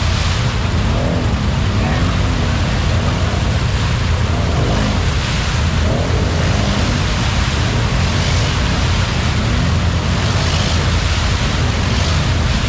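Side-by-side UTV engine running hard with its tyres spinning and churning through a deep mud hole, a loud, steady rush of engine and splashing mud.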